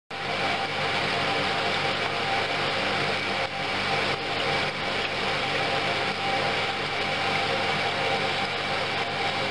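Water streaming from a glass vessel into a suspended glass bowl and splashing over into a stainless steel tank, over a steady machine hum with a few constant tones from the running flow-through ultrasonic (ultrasonic shower) setup.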